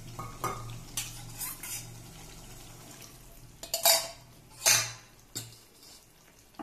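Steel spoon clinking and scraping in a steel bowl as water is poured from it into a pan of curry, with two louder clanks about four and five seconds in.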